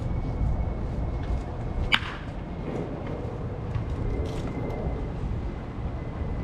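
Baseball bat striking a pitched ball once in batting practice: a single sharp crack about two seconds in, with a short ring after it.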